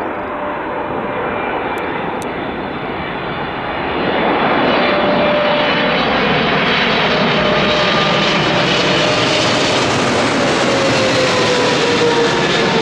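Jet airliner's engines, loud and close, growing louder about four seconds in, with whining tones that slide slowly down in pitch as the aircraft passes.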